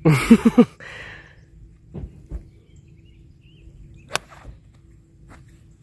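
A golf shot with a pitching wedge: a sharp, loud strike and swish right at the start, then quiet outdoor air with one sharp click about four seconds in.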